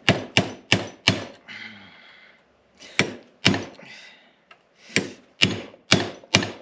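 Hammer striking a center punch to drive a press-fit pin out of a 1985 Toyota Celica door hinge: about ten sharp blows in two runs, four quick ones at the start and six more from about three seconds in, with a brief scrape between.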